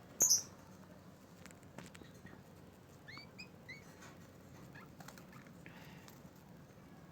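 Lovebird calling: one loud, shrill chirp just after the start, then three short rising chirps in quick succession about three seconds in, with a few faint clicks between.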